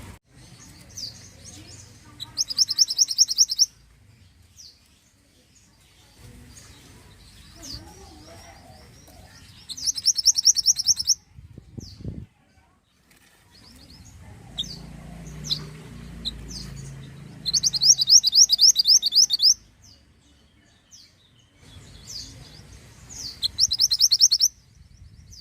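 Mantenan (small minivet) singing: four loud, rapid high-pitched trills, each lasting a second or two and spaced several seconds apart, with soft single chirps between them.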